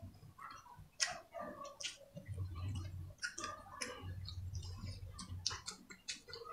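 Close-miked eating sounds of people eating by hand: chewing, lip smacks and fingers being sucked clean, a steady run of short wet clicks.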